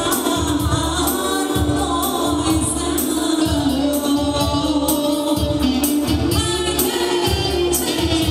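Albanian wedding song: a singer's voice over a steady drum beat and bass, with dancing music filling the hall.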